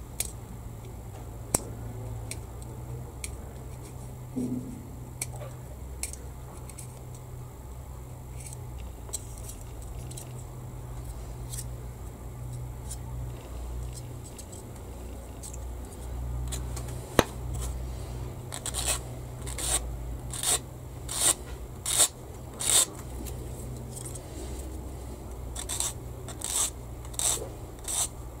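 Small metal hand file scraping a plastic model-kit part in short, even strokes, in two runs of several strokes each in the second half, after a few light handling clicks. A steady low hum lies under it.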